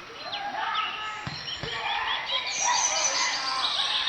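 Many birds chirping and calling at once, short overlapping chirps and whistles, with two soft low thumps a little over a second in.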